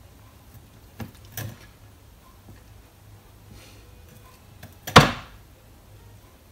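Knife knocking on a chopping board while cutting down the middle of a lemon sole: two light knocks about a second in, then a louder knock near the five-second mark.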